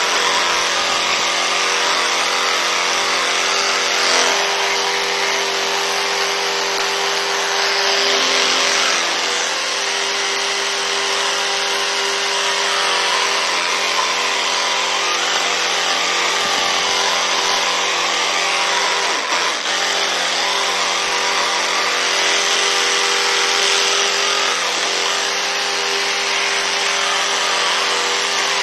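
Electric toothbrush running steadily while brushing teeth, a constant buzzing hum with a wet hiss of bristles on teeth.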